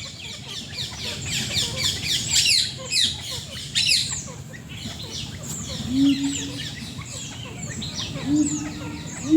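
Several birds chirping together in quick, downward-sweeping calls, densest in the first half. Short low calls come twice near the end, over a steady low hum.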